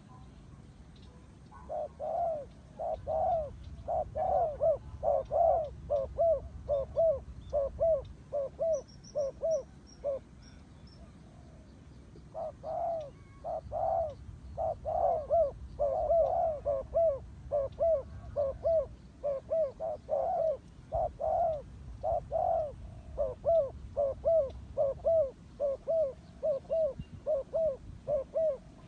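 Spotted doves cooing: a quick series of short coos, about two a second, in two long bouts with a pause of about two seconds about a third of the way in. The calling goes with the bowing display of a dove courting or facing off with another.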